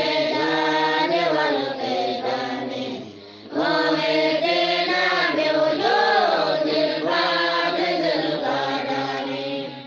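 A group of voices chanting an Arabic devotional poem in unison, a melodic line that dips briefly about three seconds in and then carries on.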